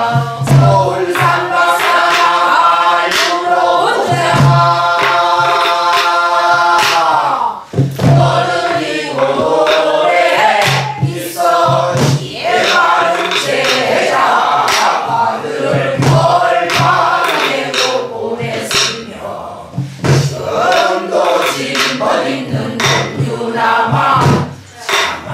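Several voices singing a Korean Namdo folk song in traditional style, with a long held note in the first few seconds. A soribuk barrel drum, struck with a wooden stick and the palm, keeps the rhythm throughout.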